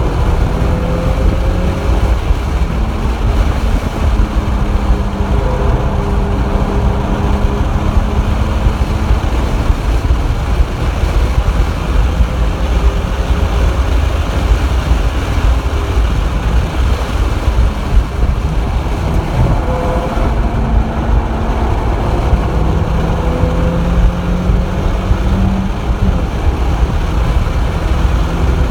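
Nissan 350Z's VQ35HR V6 engine pulling on track, heard from inside the cabin under a heavy, steady rumble of road and wind noise. The engine note rises and falls as the car is driven.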